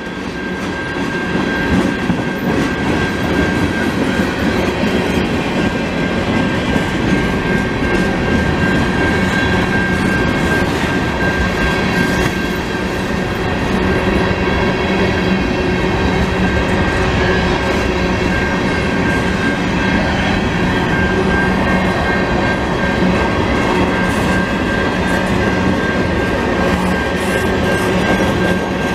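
Long CN freight train of tank cars rolling steadily past: continuous rumble and clatter of steel wheels on the rails, with a steady high-pitched tone running under it.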